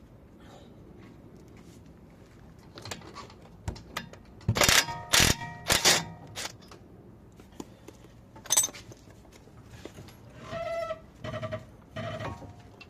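Steel wrenches clanking on a car's front brake caliper bolts: three sharp, ringing metallic strikes about half a second apart, another strike a few seconds later, then lighter ringing clinks near the end.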